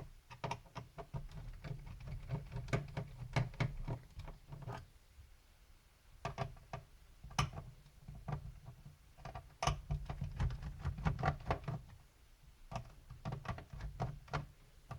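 Irregular small clicks, taps and handling noises of a screwdriver and hands working on a plastic laptop chassis, with a few brief pauses.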